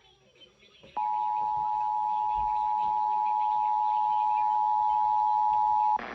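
Emergency Alert System attention signal: a steady two-tone alert tone of two close pitches just under 1 kHz. It starts abruptly about a second in, holds level for about five seconds, and cuts off sharply near the end.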